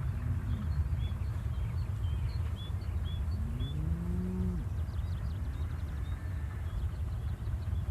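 A cow mooing, its loudest call starting about three and a half seconds in, rising in pitch for about a second before breaking off, with fainter moos near the start and about six seconds in. Under it runs a steady low rumble, and small birds chirp in short high notes.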